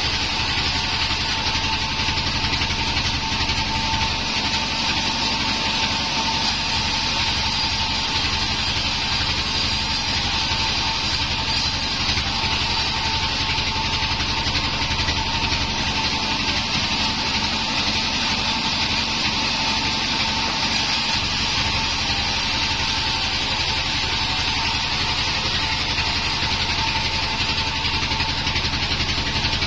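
Homemade band sawmill running steadily, its blade ripping lengthwise through a plank of wadang wood, with a steady whine over a low motor drone.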